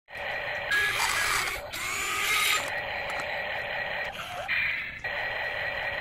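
Small electric gear motors of toy RC construction vehicles whirring in spurts, with a couple of short electronic beeps about a second in.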